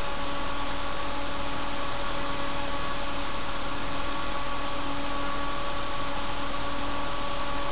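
Fan from an old OCZ computer power supply, run on 12 V as a solder fume extractor, drawing air steadily: an even rush of air with a steady hum under it.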